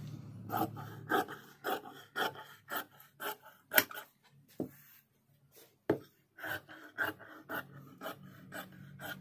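Large steel tailor's shears cutting through shirt cloth on a table: a crisp snip about twice a second, with a pause of about a second a little before the middle.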